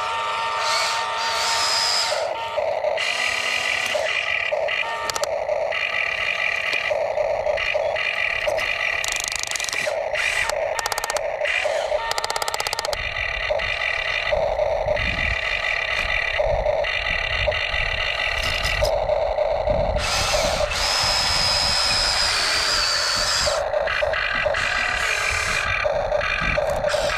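Small electric motors of radio-controlled construction models whirring in short, repeated bursts that start and stop every second or so, with a higher whine at times.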